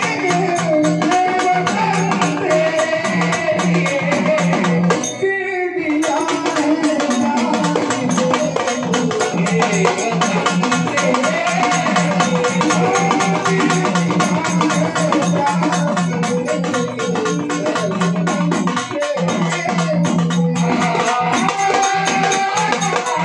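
Singing with fast, steady beating on a dimdi frame drum, in the Marathi gondhal folk style; the music drops out briefly about five seconds in.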